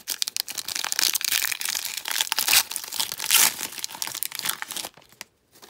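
Foil trading-card pack wrapper crinkling as it is torn open and handled, a dense rapid crackle that stops about five seconds in.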